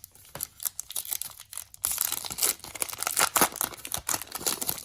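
Foil wrapper of a trading card pack crinkling and tearing open, with a few light clicks of cards being handled first, then a dense crinkling rustle from about two seconds in.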